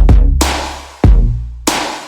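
Electronic background music with a drum-machine beat and deep bass notes.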